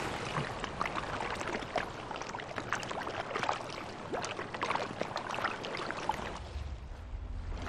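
Sea water splashing and lapping close to the microphone as a swimmer moves at the surface, with many small crisp splashes. A low hum comes in near the end.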